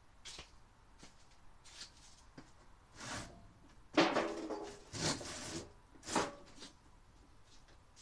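A door being shut: a soft scrape about three seconds in, then a sharp bang about four seconds in with a short ringing tail, followed by two more knocks and rattles.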